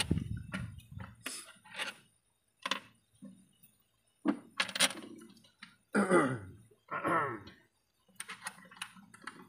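Light metal clicks and clinks of tools and fittings being handled at the injectors of a Toyota 2KD diesel engine, with short silent gaps between. Two short muffled vocal sounds, about six and seven seconds in, are the loudest part.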